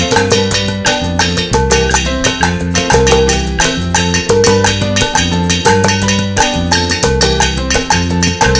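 Upbeat guaracha played on household objects: metal pots and bowls struck with drumsticks and hands in a fast, even rhythm of pitched metallic notes, layered over a repeating bass line.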